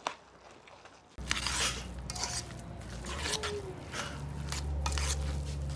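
Hand kneading and squishing a wet mash of cauliflower and egg in an enamel pot, in short irregular squelching strokes. A low steady rumble comes in about a second in.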